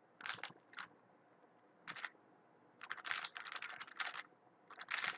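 Weilong WRM 2019 speedcube being turned fast by hand: a few separate clicks of layer turns, then dense runs of rapid clacking turns from about three seconds in.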